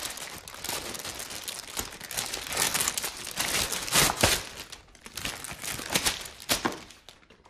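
Clear plastic wrapping crinkling and crackling as a plastic toy shield is pulled out of its bag, in irregular bursts of rustle with a few louder crackles around the middle, dying down near the end.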